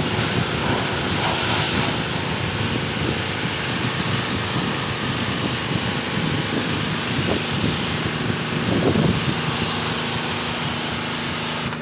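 Pressure washer running, its water jet spraying a surface: a steady rushing hiss over a low rumble.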